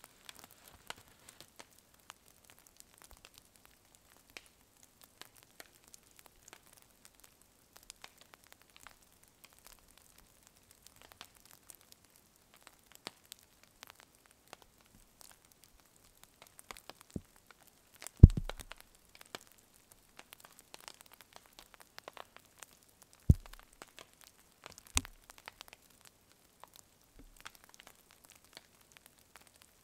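Sparse faint crackles and ticks from a small smouldering campfire, with one louder thud a little past the middle and two more a few seconds later.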